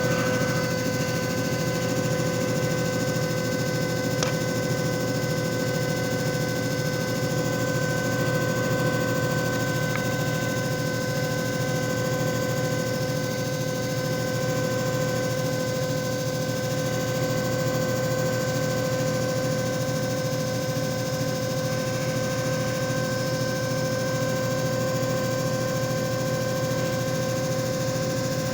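JFJ Easy Pro disc repair machine running: a steady electric motor hum with a constant whine over a fast, even rattle.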